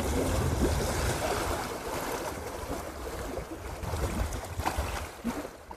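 Wind buffeting the microphone over small sea waves washing against shoreline rocks, fading out near the end.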